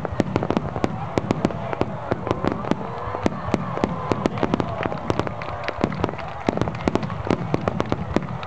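Fireworks barrage: many rapid, overlapping bangs and crackles going off without a break.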